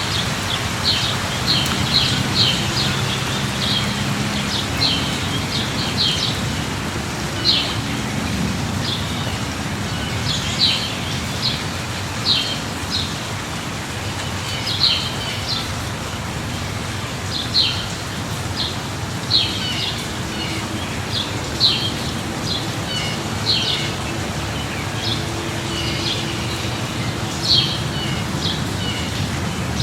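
Steady rain falling, with a bird chirping over it in short high calls every second or two, and a faint low rumble underneath.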